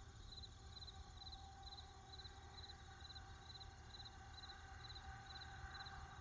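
Faint cricket chirping, about two short pulsed chirps a second, over a low steady hum.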